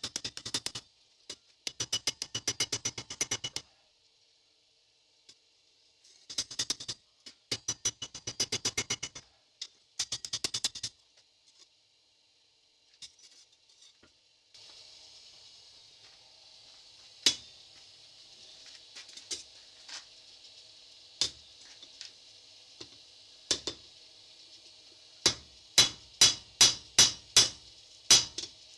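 Hammer blows ringing on a 5160 spring-steel knife blade on the anvil: fast runs of light strikes, then slower single blows. About halfway through, a steady hiss comes in behind the strikes, and near the end the blows fall about two to three a second.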